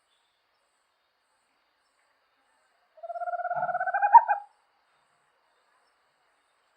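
An owl calling once: a fast, quavering trill about a second and a half long, starting about three seconds in, rising slightly in pitch and growing louder toward its end.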